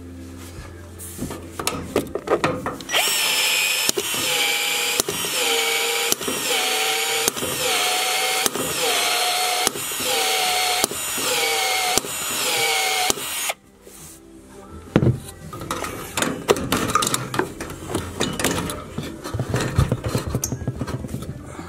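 Cordless drill motor running in a series of short pulses about a second apart for some ten seconds, then stopping abruptly. Irregular clicks and rattles of tool handling follow.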